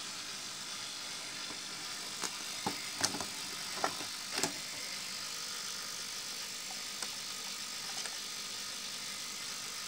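Handling noise: a few light clicks and taps, mostly in a cluster in the middle, over a steady low hiss.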